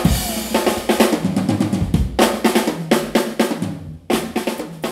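Drum solo on an acoustic drum kit: rapid snare and bass drum strokes with cymbals ringing over them, broken by a brief pause near the end before the playing picks up again.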